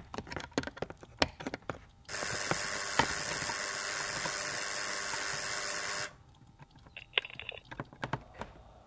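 A small screwdriver clicking and scraping in the adjustment screw of a wall-mounted intercom speaker box. For about four seconds in the middle, the intercom speaker gives out a steady static hiss, which cuts off suddenly before more screwdriver clicks.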